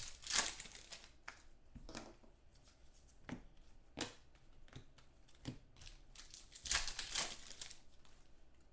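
Trading card packs being opened and cards handled: a string of short crinkles and snaps from foil pack wrappers tearing and cards being flicked through, about nine separate sounds.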